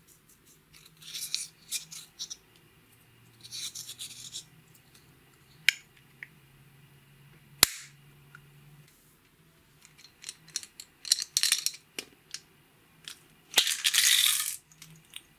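Pressed eyeshadow scraped out of a plastic compact with a small plastic spatula in short scratchy bursts, then two sharp plastic clicks as the compact is handled and shut. A run of small ticks follows, and near the end comes the loudest sound, a brief burst of rattling as silver beads are shaken in a small clear plastic container.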